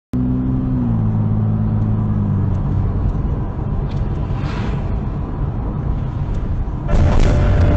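Car driving noise recorded by a dashcam: a steady engine hum for the first two or three seconds, then road and tyre noise. It turns suddenly louder about seven seconds in.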